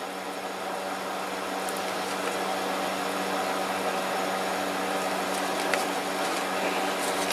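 A steady low machine-like hum with an even hiss, like a fan or air conditioner running in a small room. Twice, faint ticks of paper leaflets and plastic bags being handled come through it.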